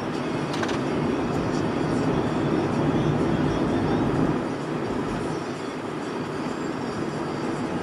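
Steady low rumble of tyre and engine noise inside a moving car's cabin, easing slightly a little past halfway.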